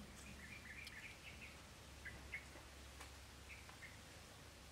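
Faint short bird chirps over quiet outdoor background: a quick run of them in the first second and a half, then single chirps every second or so. A couple of faint clicks can be heard among them.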